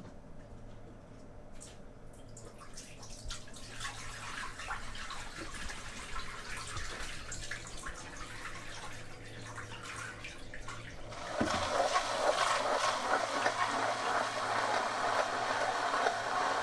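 Water poured from a bucket into a boat's bilge around a Rule-Mate 1100 automatic bilge pump, filling the sump to trigger the pump's automatic switch. The splashing grows gradually louder, then becomes a sudden louder rush of water about eleven seconds in.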